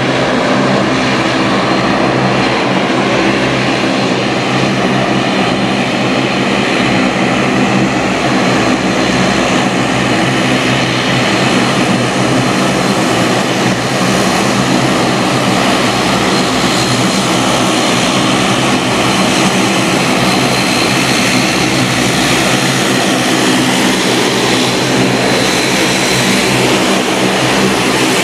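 Turboprop airliner's engines running on the ground: a loud, steady propeller drone with a high whine over it.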